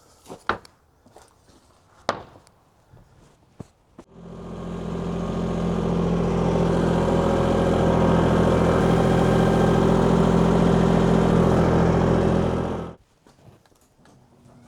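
A few light knocks, then about four seconds in an engine comes up and runs steadily at one speed, cutting off sharply near the end.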